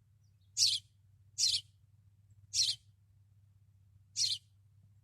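Sparrow chirping: four single sharp chirps at uneven gaps of about a second or more.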